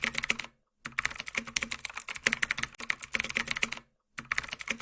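Rapid, irregular clicking typical of fast typing on a computer keyboard, many keystrokes a second. It cuts out completely twice, briefly.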